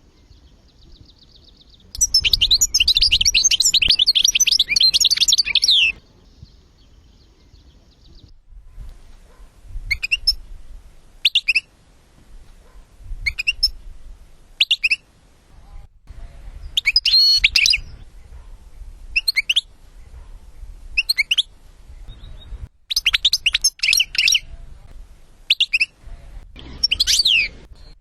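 European goldfinch song: a dense burst of rapid twittering and trills lasting about four seconds, then short twittered phrases every second or two, with fuller bursts near the middle and toward the end.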